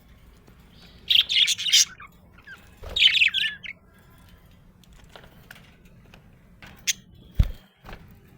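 Budgerigars chirping in two short chattering bursts, the first about a second in and the second about three seconds in. Near the end come a few light ticks and one dull knock.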